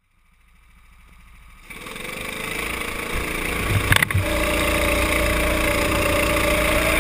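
Go-kart engine running as the kart accelerates, heard from a helmet-mounted camera: the sound fades in over the first two seconds, the engine pitch climbs and then holds steady. A sharp knock about four seconds in.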